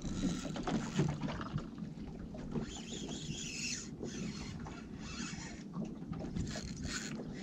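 Spinning reel being cranked to wind a hooked fish up to the boat, over a steady background of wind and water noise.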